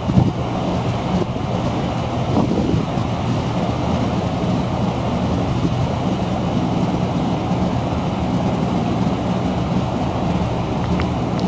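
Steady low engine drone with a humming undertone, with a couple of brief knocks near the start.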